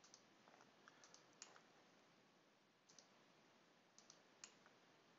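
Near silence broken by faint, scattered computer mouse clicks, a few at a time in small clusters.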